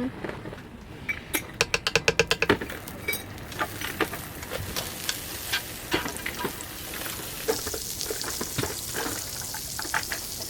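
Food frying in a pan, with a utensil clicking and scraping against it. A quick run of clicks comes near the start, and a sizzling hiss builds from about a third of the way in and grows stronger past the middle.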